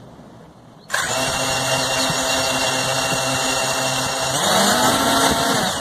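C-Fly Faith 2 quadcopter's brushless motors and propellers starting suddenly about a second in and running steadily with a motor whine. Near the end the pitch rises and falls once before the motors stop.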